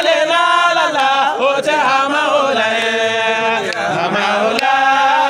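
Voices chanting a devotional Islamic praise song, drawing out long held notes that glide between pitches.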